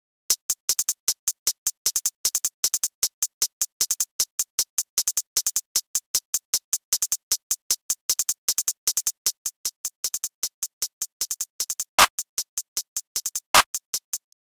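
Programmed drum-machine hi-hat (GarageBand's "Hat 04") playing alone: a quick, uneven stream of crisp ticks with fast rolls. A clap sample comes in twice near the end, about a second and a half apart, louder than the hats.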